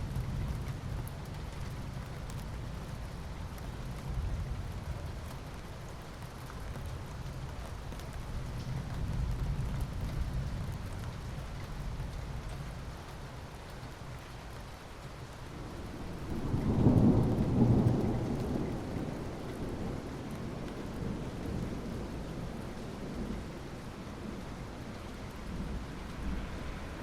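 Steady rain with low rumbling thunder; one louder roll of thunder swells up about two-thirds of the way through and fades.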